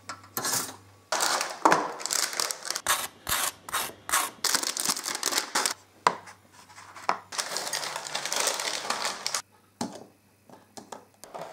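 Kitchen handling sounds from a toaster, a cardboard egg box and a spoon against an egg: a quick run of clicks, knocks and crackling rustles with short pauses between, then a few light taps near the end.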